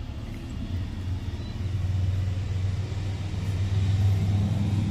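Low engine rumble of a road vehicle, steady in pitch and slowly getting louder.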